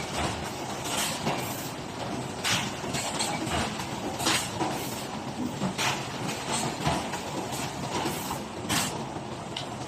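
Vacuum packing machinery running on a factory floor: a steady mechanical din broken by short, sharp hisses or clacks at irregular intervals, a few per several seconds.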